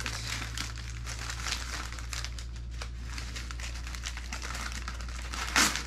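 Crumpled newspaper packing crinkling and rustling as a wrapped bundle is cut open with scissors and pulled apart by hand, with a louder crackle near the end.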